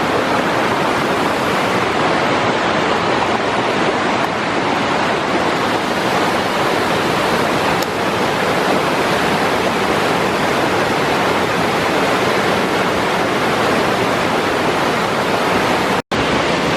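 Waterfall rushing steadily close by, a dense, loud roar of falling water. The sound cuts out for an instant near the end.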